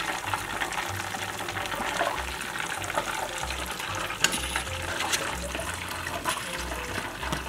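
Hot oil sizzling and crackling steadily as a breaded cheeseburger deep-fries.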